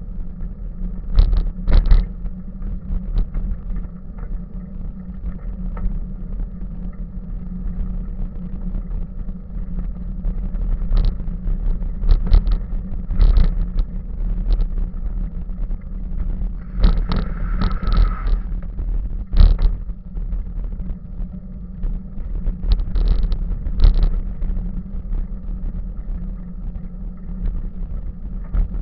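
Bicycle riding along a rough path, heard from a camera mounted on the bike: a steady low rumble with irregular knocks and rattles as it jolts over bumps.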